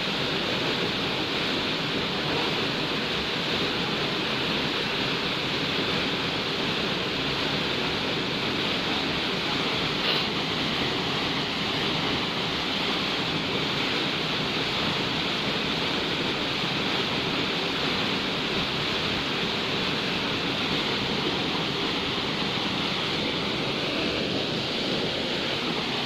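Waterfall's steady rush of falling water, an even roar that holds without change.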